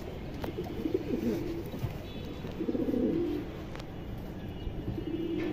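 Domestic pigeons cooing: two low, wavering coos about a second and a half apart, with a few light clicks in between.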